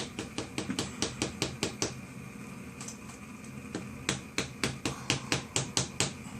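A hammer tapping shims in snug under a brick, quick strikes about six a second in two runs with a pause in the middle.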